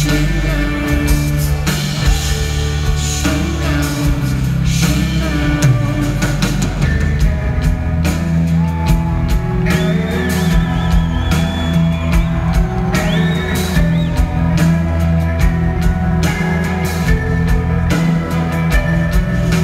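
Live rock band playing through an arena PA, recorded from the audience: electric guitars, bass and drum kit in a slow, sustained passage. Held high guitar notes come in about ten seconds in and again around thirteen seconds.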